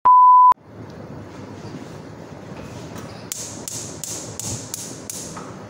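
A loud, steady beep-like tone lasting about half a second, coinciding with a video-glitch transition. After it comes a low, steady hiss from a lit gas burner under a frying pan of oil. Past the middle, six sharp high ticks come about three a second.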